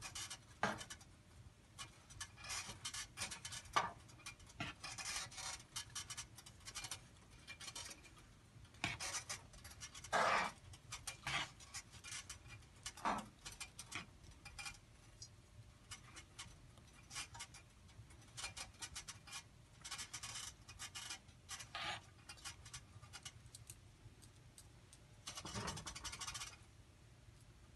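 Metal spoon stirring and scraping against a steel pan of cooked rice and melting jaggery, in short, irregular scrapes, with a longer, louder scrape near the end.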